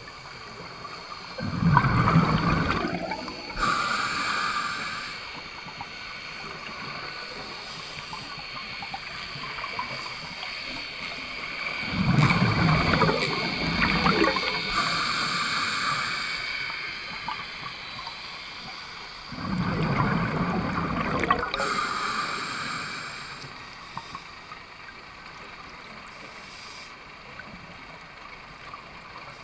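Scuba diver breathing through a regulator underwater. Three breaths come about eight to nine seconds apart, each a rumbling burst of exhaled bubbles followed by a short hiss from the regulator.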